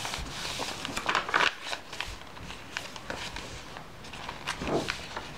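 Pages of a handmade paper journal being turned and handled: paper rustling with a few sharp flicks in the first second and a half, then quieter handling of the pages, with another short rustle near the end.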